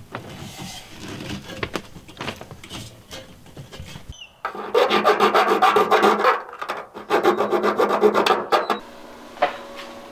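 A saw blade cutting through the sheet-metal roof skin of a school bus: a rapid, even run of strokes starts a little before halfway, lasts about four seconds and stops abruptly. Before it come light clicks and scrapes.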